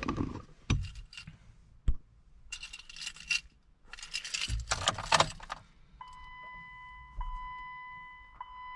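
A car key ring jangling in two bursts as the key goes into the Jeep Wrangler's ignition and is turned, after a few light knocks. About six seconds in a steady high electronic tone sets in as the ignition comes on.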